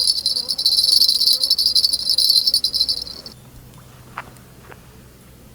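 A dense, high-pitched chorus of insects singing steadily, which stops abruptly a little past halfway, leaving a faint low hum and a couple of small clicks.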